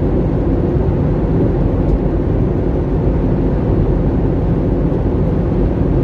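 Steady rumble of an airliner's cabin noise in flight: the engines and the rush of air against the fuselage, heard from inside the cabin.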